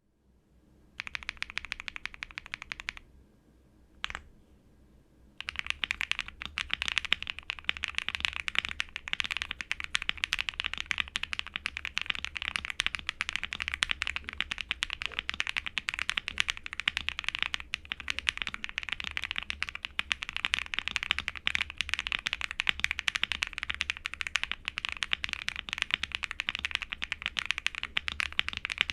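Typing on a QK65 mechanical keyboard with lubed Akko CS Silver linear switches on an FR4 plate: a short burst of keystrokes, a single key press about four seconds in, then steady fast typing.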